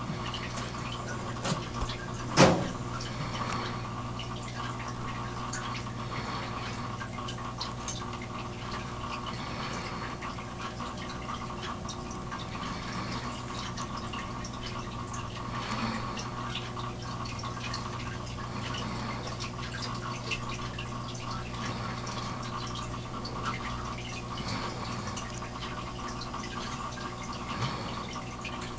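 Steady hum with faint water-like trickling and dripping and scattered light ticks, and one sharp knock about two and a half seconds in.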